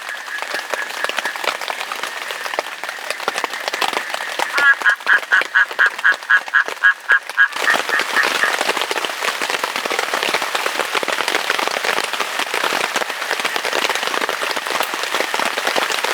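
Rain falling, turning suddenly much heavier about halfway through. Before the downpour comes in, an animal gives a quick run of about a dozen evenly spaced calls.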